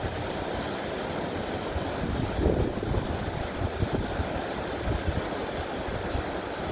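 Waterfall rushing steadily, a dense even noise with a low, uneven rumble underneath.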